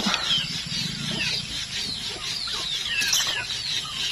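Chickens and chicks peeping and clucking: many short, high chirps falling in pitch, overlapping throughout.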